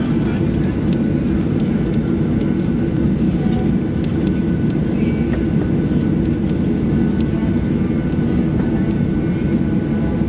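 Cabin noise inside a Boeing 737-800 taxiing: the CFM56 engines' steady low rumble heard through the fuselage, with a few faint ticks and rattles.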